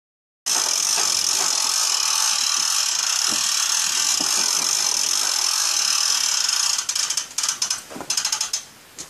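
A handheld power drill driving the KO Mover's gear mechanism on a cattle crush: a steady high whine for about six seconds, then a few short stop-start bursts before it stops near the end.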